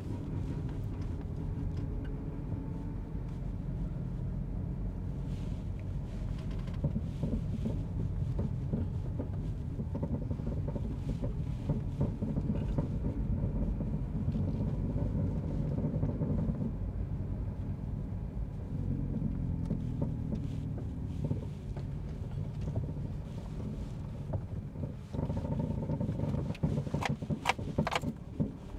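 A vehicle driving along a rough road: a steady low rumble with a continual rattle, which the driver suspects is a broken exhaust.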